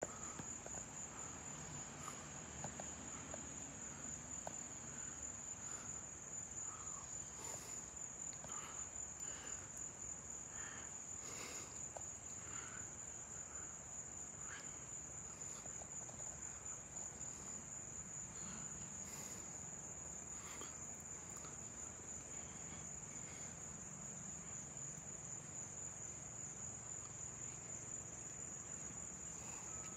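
Insects trilling in a steady, high-pitched drone, with faint scattered chirps and a faint low rumble underneath.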